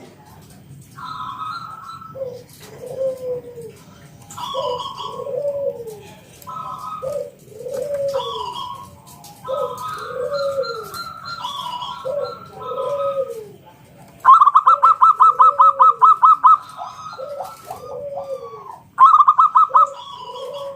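Zebra dove (perkutut) cooing over and over in rounded, rising-and-falling phrases. Twice a louder, fast run of repeated notes cuts in, about two seconds long at first and shorter near the end.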